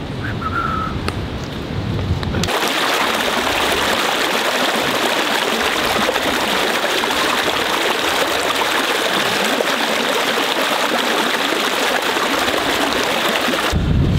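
Running water of a small stream, a steady even rush that starts suddenly a couple of seconds in and cuts off abruptly near the end. Before it, wind rumbles on the microphone.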